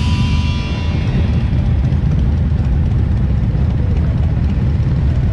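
Motorcycle engines rumbling steadily as a group of bikes rides together, with background music fading out in the first second.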